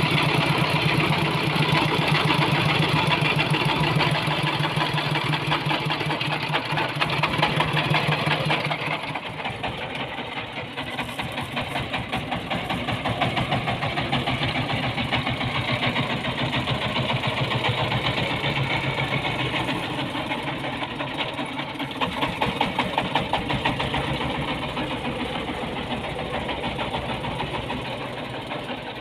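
Small single-cylinder diesel engine of a homemade 'ledok' dump truck chugging steadily as the truck drives with a bed full of sand. It is heard close up from the seat at first, then from the roadside from about nine seconds in.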